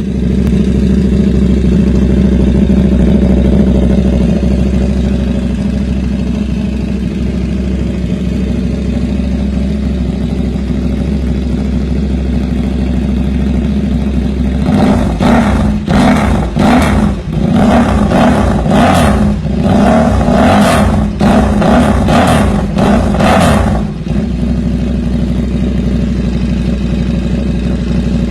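KTM 1190 RC8's V-twin engine idling steadily, then revved in a quick series of short throttle blips for about nine seconds before settling back to idle.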